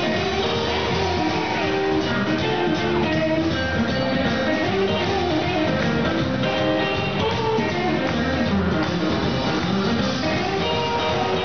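Live band playing rockabilly, with a hollow-body electric guitar carrying the lead over bass and drums.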